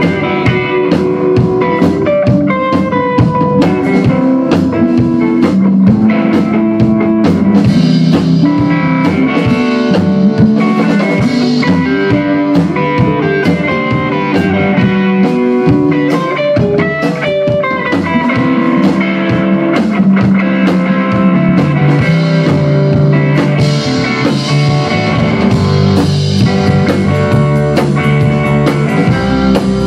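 A rock band playing together: electric guitar and bass guitar over a drum kit, with a steady beat of drum hits throughout.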